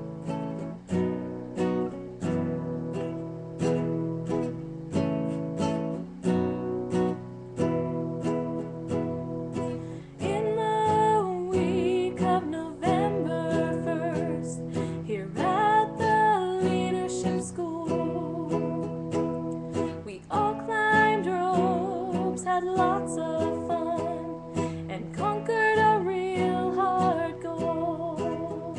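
Acoustic guitar strumming chords, joined about ten seconds in by a singing voice.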